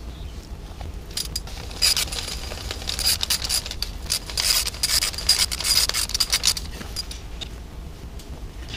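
Scraping, rubbing and clicking of engine parts being handled by a gloved hand around the valve cover of a BMW N62 V8. It comes as a dense run from about a second in until about six and a half seconds, over a low steady hum.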